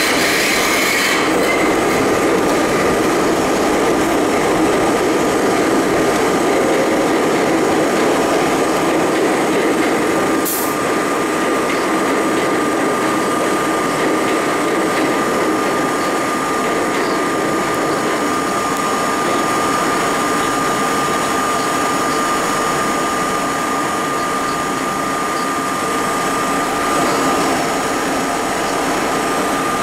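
R32 subway car running through a tunnel, heard from inside the front car: a steady rumble of wheels on rail with a constant high whine. A harsh high squeal fades out in the first second, and a single sharp click comes about ten seconds in.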